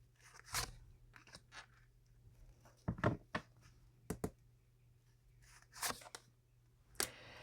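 Tarot cards being handled: short paper rustles and soft slaps as cards are pulled from the deck and laid down, a dozen or so at uneven intervals.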